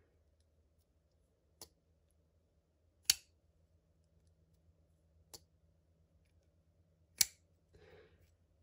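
Custom titanium-framed Millet Torrent folding knife being worked open and shut by hand, its blade and lock giving four sharp metallic clicks, the second and fourth much louder.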